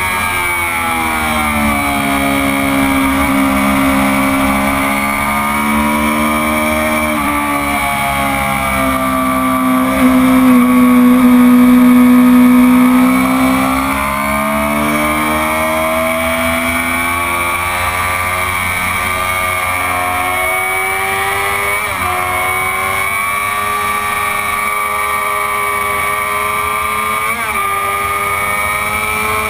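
Stock 2004 Honda CBR600RR's inline-four engine at high revs on track, heard from on board: its note rises and falls with throttle through the corners, with a few quick breaks in the note as it shifts gear. It is loudest a little before the middle, under hard acceleration.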